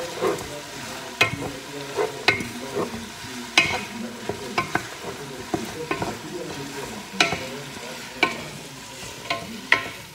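A utensil stirring food in a frying wok over a steady sizzle, with sharp, irregular knocks and scrapes against the pan every second or so.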